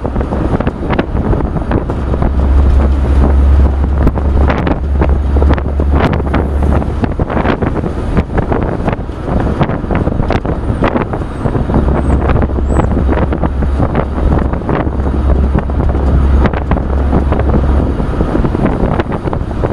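Wind buffeting the microphone in the open wood bed of a moving 1966 Chevrolet pickup truck, over the truck's road noise and frequent clicks and rattles from the bed. The low wind rumble comes in heavy gusts.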